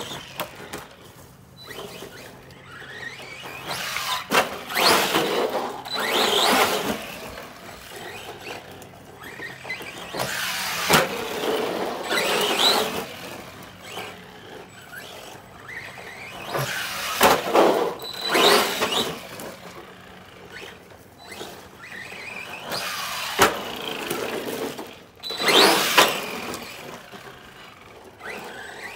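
Arrma Granite 3S RC monster truck driven in about four bursts of throttle. The brushless motor whines up and down in pitch while the tyres scrub over gravelly asphalt, with a few sharp knocks.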